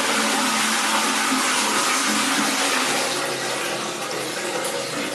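Conventional Western-style flush toilet with water rushing through the bowl after flushing, easing off slightly near the end. It is a full water flush of roughly 6 to 7 litres.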